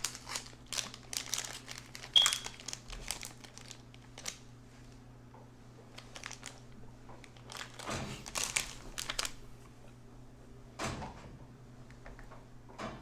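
Crinkling and rustling, as of wrapping being handled, in bunches of sharp crackles: a long run at the start, another past the middle and a short one later. A faint steady low hum lies underneath.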